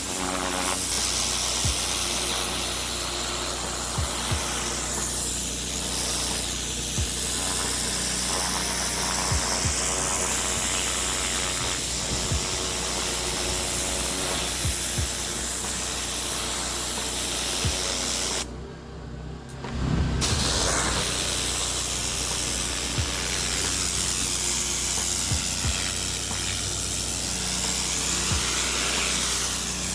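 Gas-engine pressure washer running steadily, its high-pressure water jet hissing against the pavers. About two thirds of the way through, the spray cuts out for a second or two and then resumes.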